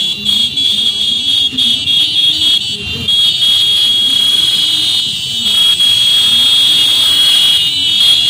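Motorcycles running together in a slow procession under a loud, steady, shrill high-pitched tone.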